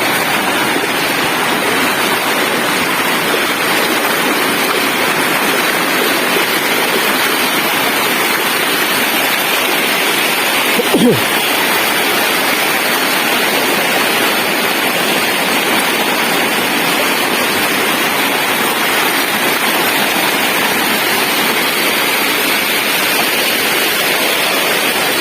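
Waterfall rushing, a steady dense roar of falling water that does not change, with one short sound about eleven seconds in.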